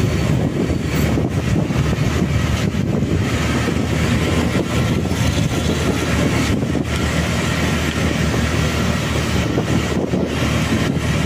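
Motorcycle being ridden at a steady speed: engine running with a constant low hum, mixed with wind and road noise.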